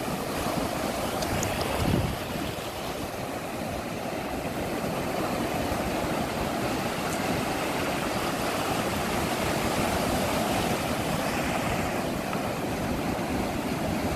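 Ocean surf washing and breaking on the shore: a steady rushing, with a brief low thump about two seconds in.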